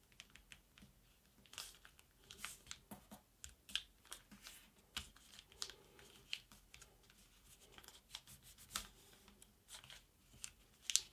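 Faint rustling and crinkling of a sheet of paper being folded and creased by hand, with short crisp crackles scattered irregularly throughout.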